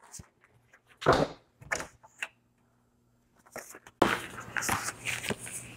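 A few short knocks and rustles of grocery packages being handled and put away in a freezer. About four seconds in, a busier, louder run of handling noise begins.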